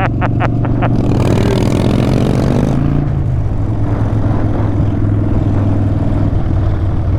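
Harley-Davidson Dyna Street Bob V-twin with Vance & Hines Short Shots exhaust running steadily at cruising speed, with wind rushing past. A short run of rapid, evenly spaced pulses fades out about a second in.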